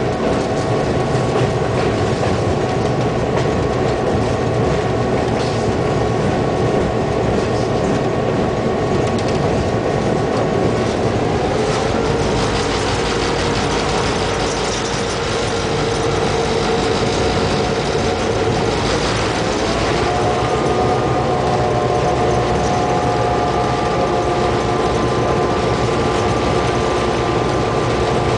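Diesel locomotive engine running steadily under its long hood, with wheels rolling on the track, heard close up from the cab. The pitch of its steady hum drops about ten seconds in and climbs again about twenty seconds in.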